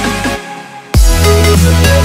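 Background electronic dance music. The bass cuts out about half a second in, then comes back as a heavy bass drop with a strong beat just before the one-second mark.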